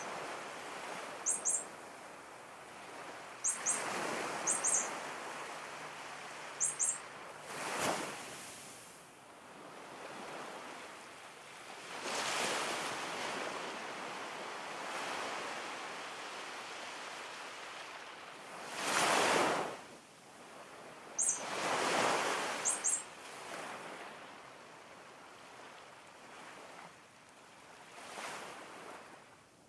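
Ocean surf: waves washing in and receding every few seconds, one swell after another. Short, high bird chirps, mostly in pairs, come several times near the start and again about two-thirds of the way in.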